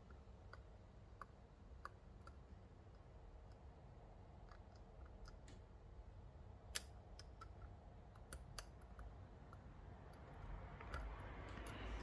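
Faint, irregular metallic clicks of a dimple pick working against the pins inside a Mul-T-Lock Classic pin-in-pin cylinder as the inner pins are pushed up, with a sharper click about seven seconds in. A soft rustle builds near the end.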